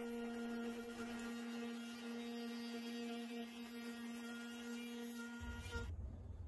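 A steady, even hum with several overtones, cutting off abruptly near the end.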